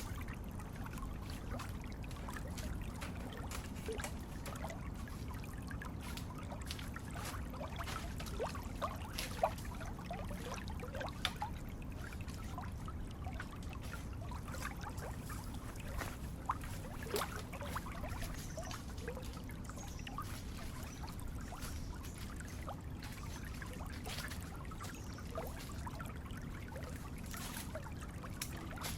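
Running water trickling and splashing steadily, with many small drips and plinks over a low continuous rush.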